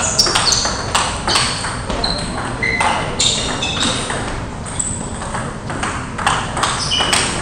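Table tennis balls clicking off tables and bats in rallies at several tables at once: quick, irregular ticks, each with a short high ring.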